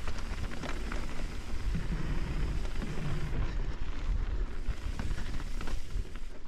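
Mountain bike riding fast down a dirt singletrack: low wind buffeting on the camera's microphone over the rolling noise of knobby tyres on dirt, with scattered clicks and knocks as the bike clatters over bumps.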